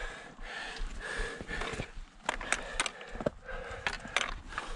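A hiker breathing hard while scrambling up rock, with several sharp clicks of trekking-pole tips and boots striking stone in the second half.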